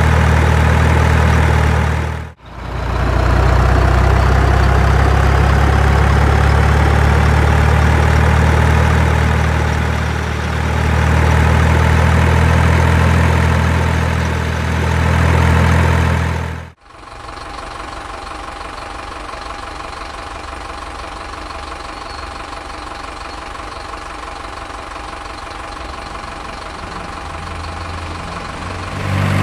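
Heavy truck engine idling: a loud, steady low hum with a brief dip about two seconds in. About 17 seconds in it cuts off abruptly, and a quieter, thinner engine hum takes over.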